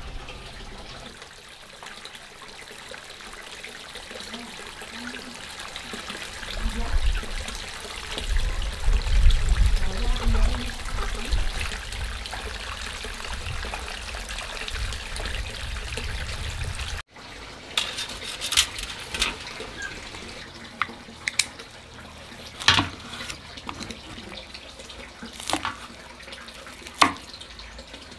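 Running, splashing water for the first half, with some low bumps. After a sudden cut, a scattering of sharp clicks and knocks.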